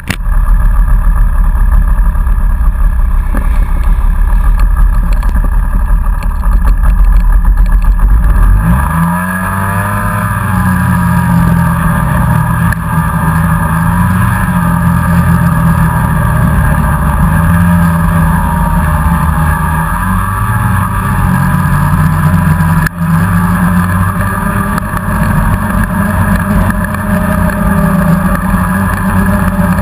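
Snowmobile engine running under way, heard from on the machine. For the first eight seconds or so a heavy, low rumble dominates. Then the engine note rises as it accelerates and keeps wavering up and down with the throttle.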